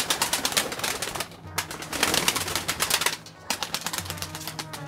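Domestic pigeons flapping their wings as they take off and land around the feeder, in three spells of fast wing beats. Background music with low held notes plays underneath.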